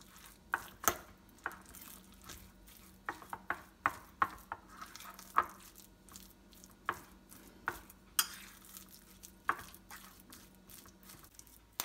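A metal fork stirring raw ground turkey with spices in a ceramic plate, with irregular clicks and scrapes as the fork knocks against the plate.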